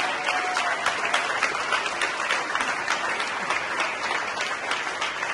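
Audience applauding: a roomful of people clapping steadily and densely.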